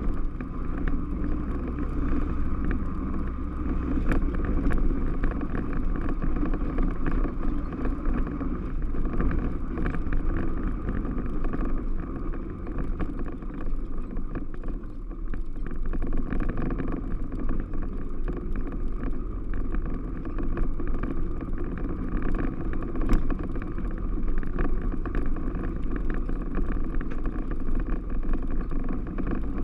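A 2006 Yamaha Rhino 660 side-by-side's single-cylinder four-stroke engine runs steadily as it is driven along, easing off briefly about halfway through.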